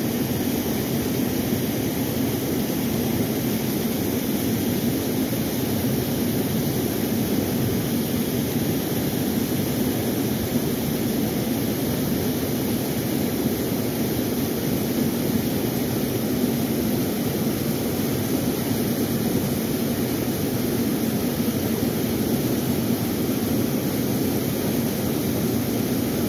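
Steady roar of fast river water at high flow, pouring over a low weir in whitewater and rushing past.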